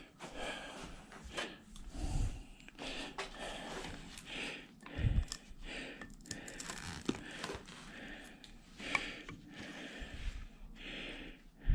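Scattered clicks, light knocks and scraping as a washing machine motor is handled and its windings are scratched and turned over to judge whether they are copper or aluminum.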